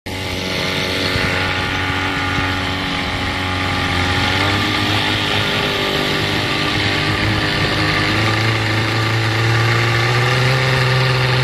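1970 Mercury Merc 110 9.8 hp two-cylinder two-stroke outboard running under way, pushing the boat at speed. The engine note is steady, and the revs rise a little about eight seconds in.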